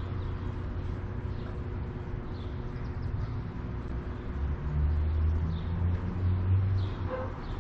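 A steady low rumble that grows louder for about two seconds past the middle, with faint high chirps every second or so from a flock of small birds, perhaps barn swallows, circling overhead.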